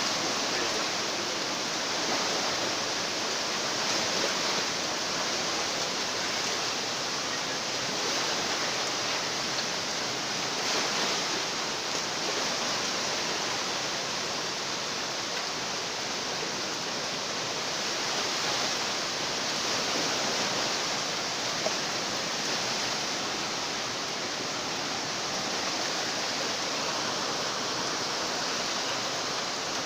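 Flash-flood water rushing past in a steady, unbroken noise.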